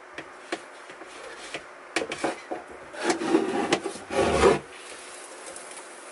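Metal snake hook tapping and scraping against driftwood and bark chips, with a sharp knock about two seconds in. Then a large cobra's body rubs and scrapes over the wood and bark for about a second and a half as it is hooked out.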